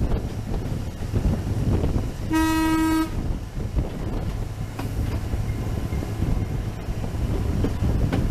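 Sri Lanka Railways Class W3 diesel locomotive sounding its horn once, a short single-note blast of under a second about two seconds in, as a warning approaching a level crossing. Under it runs the steady low rumble of the moving train.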